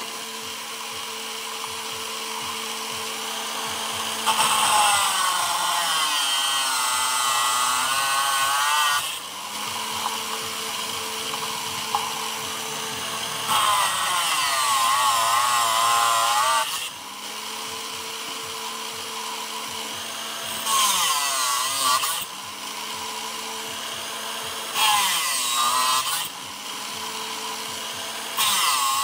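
Angle grinder with an abrasive cut-off disc, mounted as a homemade chop saw, running steadily and cutting through steel flat bar five times. Each cut brings a louder grinding noise with a wavering pitch while the motor's whine sags under load, recovering between cuts; the first cut is the longest.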